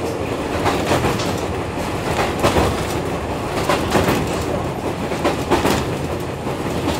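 Fuji Kyuko 6000 series electric train (ex-JR East 205 series) running, heard from inside the car: a steady rumble with irregular clacks as the wheels pass over rail joints.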